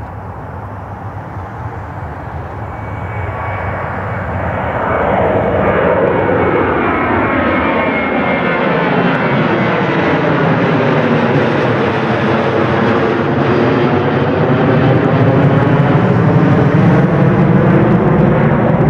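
Boeing 737-700's CFM56-7B jet engines at takeoff power as the airliner climbs out and passes overhead: a steady jet rumble that grows louder over the first few seconds, then takes on a sweeping, phasing sound and stays loud as the plane flies away.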